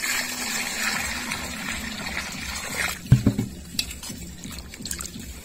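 Water poured from a vessel into a steel bowl of malgi fish, splashing over them for about three seconds. A thump follows, then hands swish and rub the fish in the water.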